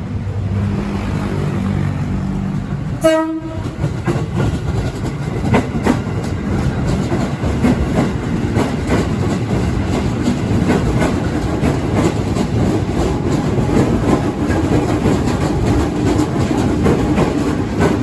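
A train passing close by, with one short horn blast about three seconds in, then steady wheel clatter over the rail joints.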